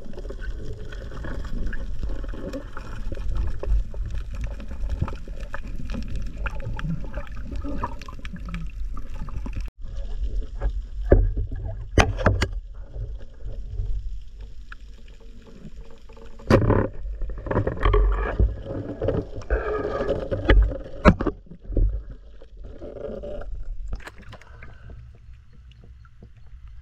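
Water sloshing and gurgling around a camera held underwater, over a steady low rumble, with several sharp knocks along the way.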